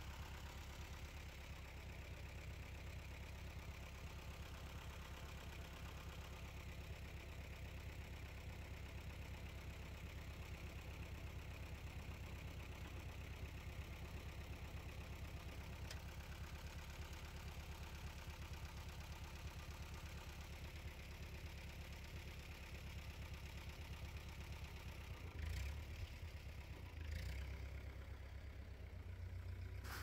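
Vintage farm tractor engine idling steadily with an even low chug, picking up briefly twice near the end.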